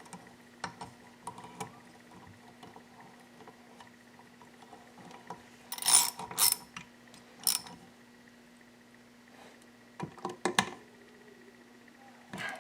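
Hand tools working on a motorcycle crankcase and its crank bearing retainers: faint scattered clicks, with a few sharp metal clinks about six and seven and a half seconds in and a quick cluster of them near ten seconds, over a faint steady hum.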